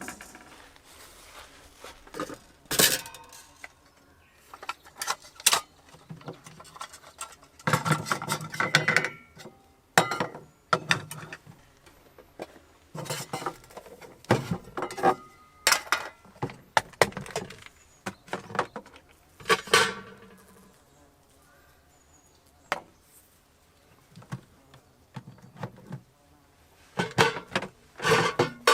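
Irregular clinks, knocks and clatters of camp cookware and utensils being handled, in scattered clusters with short gaps between them.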